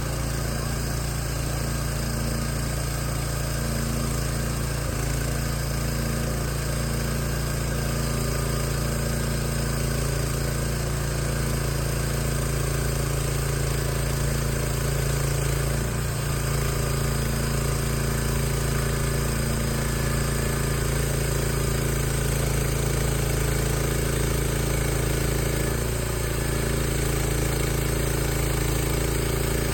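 Gas engine of a Hud-Son Homesteader band sawmill running steadily at constant speed.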